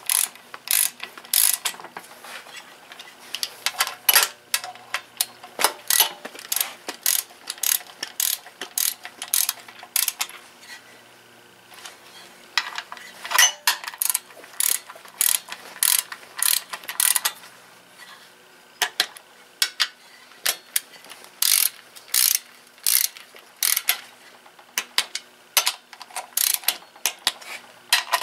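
Hand socket ratchet clicking in quick runs of strokes, with short pauses between the runs, as a fastener is turned.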